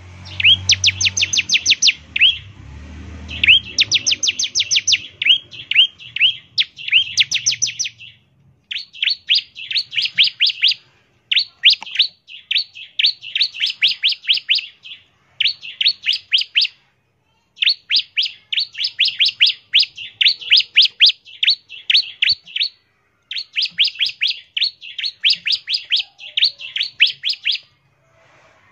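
Bar-winged prinia (ciblek) singing its rapid 'ngebren' song: fast runs of sharp, high chip notes, several a second, in bursts of one to three seconds with short pauses between. A low rumble sits under the song for the first several seconds.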